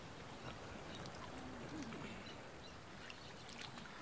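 Quiet ambience of water lapping around people standing in the sea, with a faint murmured voice about a second and a half in.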